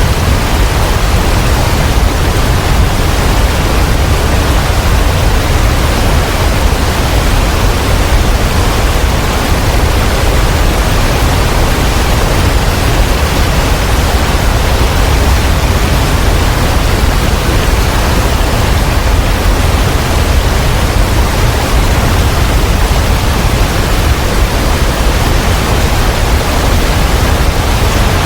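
Loud, steady rush of falling water from the Abbey Falls waterfall, heavy in the low end and unbroken throughout.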